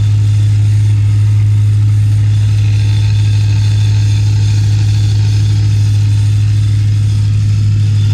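ESS VT2-625 supercharged BMW E92 M3's S65 V8 idling steadily, a low even drone with a faint steady high whine over it.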